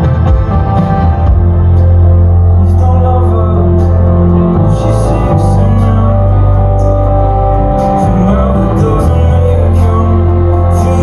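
Live band music played loud through a venue PA, with deep sustained bass notes and keyboard chords and a voice singing over them. Short hissing cymbal strokes come in about two and a half seconds in.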